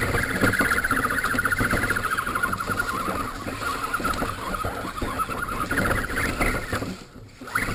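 Electric motor and gear train of an Axial radio-controlled scale crawler whining steadily as it drives through shallow water and wet leaves, with rough splashing and scraping underneath. The whine sags a little in pitch, rises again near the end and cuts off suddenly about seven seconds in.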